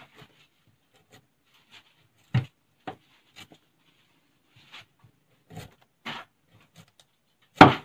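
Kitchen knife paring the skin off a gadung (wild yam) tuber held in the hand: short scraping cuts at irregular intervals, with peel pieces landing on a wooden board. The loudest strokes come about two and a half seconds in and just before the end.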